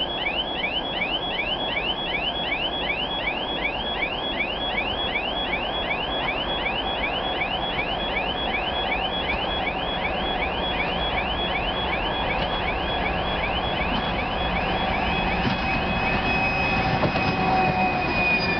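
Level crossing warning signal sounding rapid rising chirps, about three a second, which stop about two-thirds of the way through. Then a 2TE116 two-section diesel locomotive grows louder as it approaches hauling a tanker train, with a high whine falling slightly in pitch near the end.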